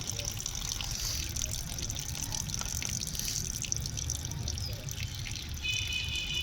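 Water running and trickling steadily, not shutting off. Near the end there is a short, high electronic-sounding tone and a low hum.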